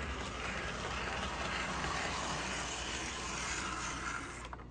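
Postwar Lionel 2032 Erie Alco powered unit running on toy train track: a steady whir of its electric motor and wheels on the rails, running smoothly after being freshly oiled. Near the end the sound drops away with a click.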